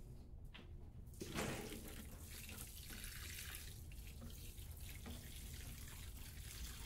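Water pouring from a plastic watering can onto loose potting mix in a plastic tray, a soft steady trickle that begins about a second in, wetting the mix until it is damp.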